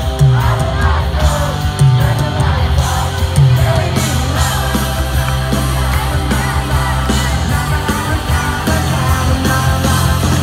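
Live country-rock band playing loudly on a concert stage, with a heavy, steady bass underneath.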